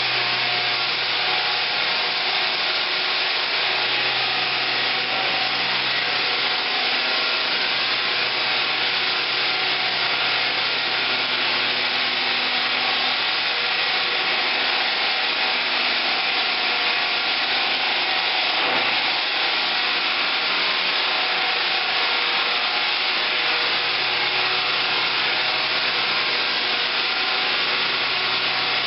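Drum floor sander sanding oak herringbone parquet down to bare wood: a steady hiss of the abrasive on the wood over the even hum of the machine's motor.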